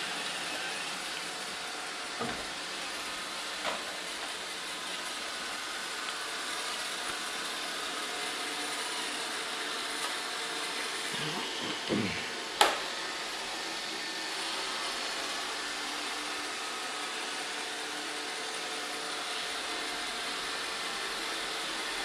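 iRobot Roomba 565 robot vacuum running across a wooden floor, a steady hum of its vacuum motor and brushes. A few light knocks, and one sharp knock about halfway through as its bumper meets an obstacle.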